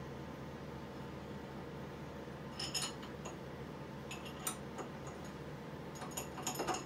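Light metallic clinks and taps of steel tools and parts being handled at a mini metal lathe's chuck and adapter plate. A couple come a little before the middle, one just after, and a quick cluster near the end, over a steady low hum.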